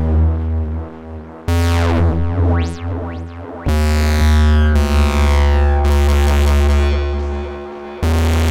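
Dreadbox Dysphonia synthesizer playing bass-heavy notes that start suddenly every second or two, its sound driven by recorded control-voltage clips played back from the DAW. About two to three seconds in, two bright sweeps rise and fall.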